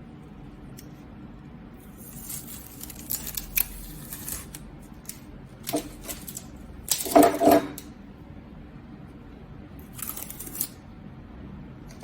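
Graphics card packaging being handled: bursts of rustling and small clicks, with a louder scrape about seven seconds in.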